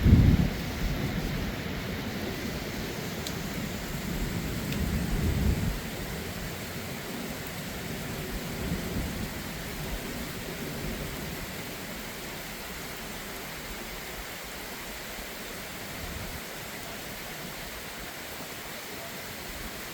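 Thunderstorm: heavy rain falling steadily, with a sharp, loud thunderclap right at the start and a second rolling rumble of thunder about four to six seconds in.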